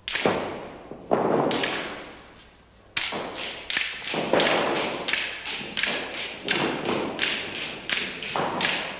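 A run of hard knocks and thuds, each ringing on briefly: a few spaced strikes, then from about three seconds in a quicker series of two or three a second.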